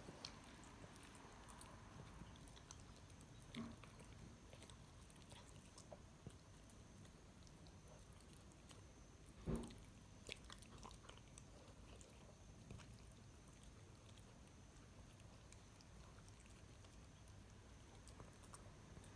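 A Pomeranian chewing and eating a homemade meal of chicken, tomato and maitake mushroom, faint, with scattered small clicks. A louder knock comes about three and a half seconds in, and the loudest knock comes near the middle, followed by a few quick clicks.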